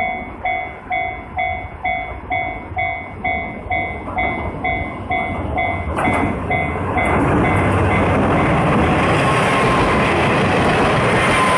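Japanese level-crossing alarm dinging about twice a second, then drowned out about halfway through by a train passing close by, a loud steady rumble with wheel clatter.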